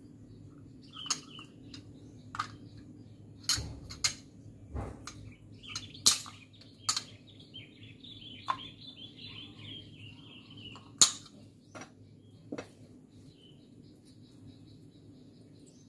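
Scattered sharp clicks and clacks of small metal parts of a dismantled motorcycle starter motor being handled and set down, the loudest about 11 seconds in. Birds chirp in the background for a few seconds in the middle.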